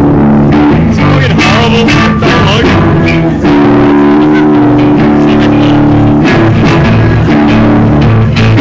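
Alternative/metal rock band playing loud live: electric guitars and bass hold heavy sustained chords over drums and cymbal crashes, with a brief break about three and a half seconds in before the band comes back in.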